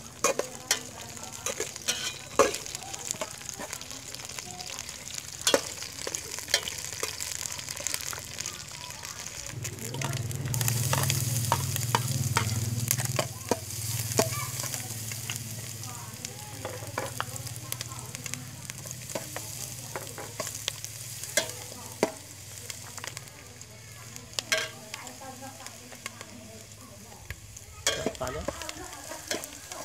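Stir-frying in a steel pot: a metal spatula scrapes and clicks against the pot while sliced lemongrass, root slices and chili sizzle in the oil. The sizzle swells louder about ten seconds in for a few seconds, then settles back.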